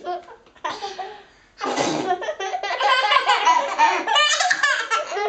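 Small children laughing and giggling: a few short bursts at first, then near-continuous, lively laughter from about one and a half seconds in.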